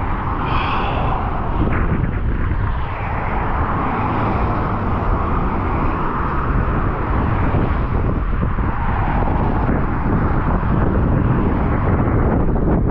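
Wind buffeting the microphone, with road traffic passing steadily.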